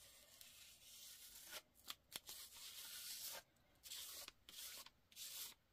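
Faint scraping of a palette knife dragging thick acrylic paint across paper, in a series of short strokes with a few light clicks between them.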